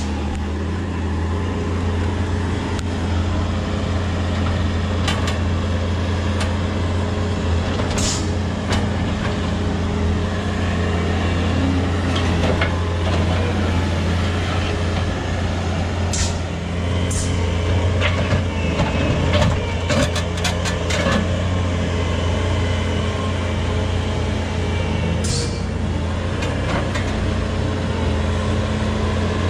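Bobcat skid steer's diesel engine running steadily at working speed, with a few sharp knocks scattered through as the steel grapple attachment grabs and shifts boulders.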